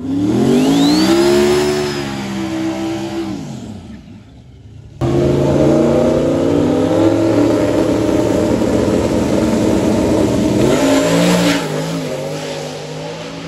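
Drag-racing vehicles at the strip. First an engine revs up with a rising whine and then fades out. After a sudden change, drag cars, a Volvo 240 wagon and a Mustang, run loudly at the start line, then launch about 11 seconds in and pull away.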